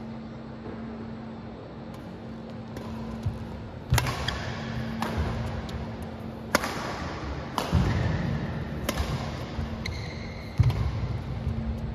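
Badminton rally: rackets striking a shuttlecock, about six sharp hits a second or so apart, some with low thuds from the players' footwork on the court, over a steady hum.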